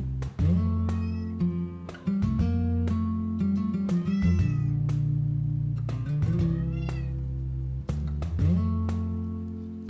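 Plucked acoustic-guitar background music, with a Genetta kitten mewing over it a couple of times with short rising-and-falling calls around the middle.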